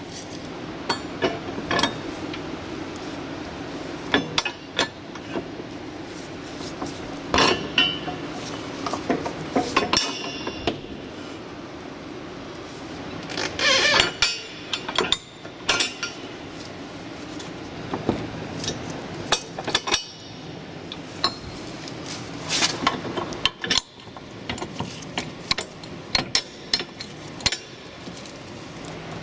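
Irregular metallic clinks and knocks as bolts, washers and the steel tow hitch bracket are handled and fitted by hand against the vehicle's hitch side arms, over a steady low hum.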